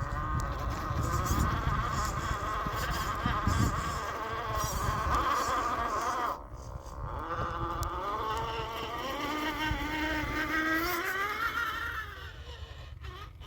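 Axial SCX10 II RC crawler's electric motor and drivetrain whining as it drives, the pitch wavering with the throttle, over a low rumble. The whine cuts off briefly about six seconds in, then returns and rises slowly in pitch before fading near the end.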